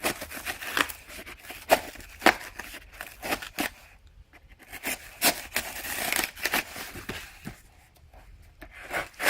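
Cardboard shipping box being opened by hand: packing tape being cut and torn, with sharp clicks and scrapes of cardboard and a longer tearing stretch past the middle.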